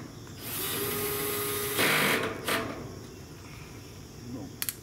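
Cordless drill/driver driving a sheet-metal screw into a grill panel: a steady whine for about a second and a half, then a louder, rougher burst and a short blip. Two sharp clicks near the end.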